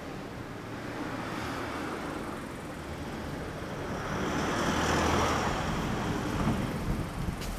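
Traffic noise: a road vehicle passing on the street, its rumble and tyre hiss swelling to a peak about five seconds in and then fading.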